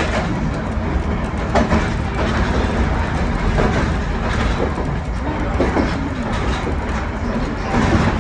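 A 1928 Kawasaki-built wooden streetcar with nose-suspended motors, running steadily along the track, heard from its cab. The running makes a dense rumble, with a few sharp clicks as the wheels pass over rail joints.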